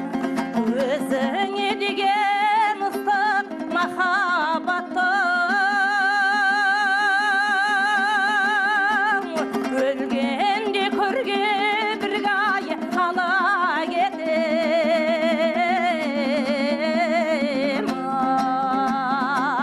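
Kazakh folk song: a voice holding long, wavering notes over plucked-string accompaniment.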